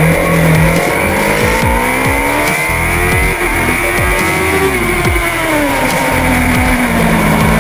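Onboard sound of a 1000 cc superbike engine at race speed, revving hard, its pitch climbing and dropping back again and again through gear changes, with other bikes' engines around it.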